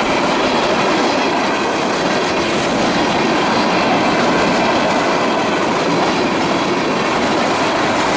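Freight cars of a passing train rolling by close at hand: a steady, loud noise of steel wheels running on the rails.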